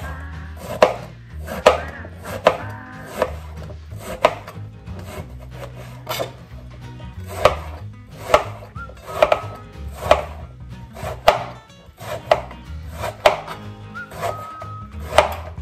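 Large kitchen knife chopping a peeled eggplant into cubes on a plastic cutting board: a sharp cut about once a second.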